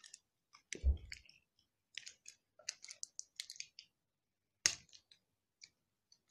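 Plastic toy packaging being picked at and pulled open by hand: scattered crackles and clicks, with a dull thump about a second in and a sharp snap near the middle.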